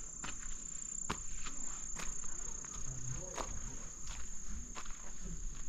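Insects trilling in one steady high tone, with footsteps on dry packed earth, about one step every 0.7 seconds.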